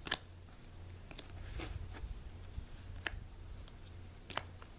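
Yu-Gi-Oh cards being handled and flipped through one by one, giving about five sharp little clicks spaced a second or so apart.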